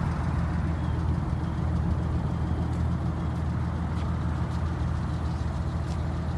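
1992 Acura NSX's 3.0-litre V6 idling steadily.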